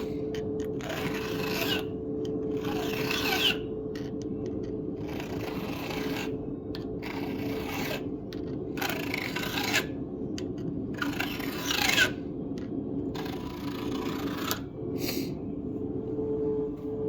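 Flat file being drawn across a chainsaw chain's rakers (depth gauges) at an angle, about seven separate rasping strokes a couple of seconds apart, over a steady low hum.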